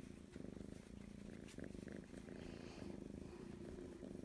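A tabby-and-white kitten purring steadily while being stroked, with short breaks between breaths about once a second.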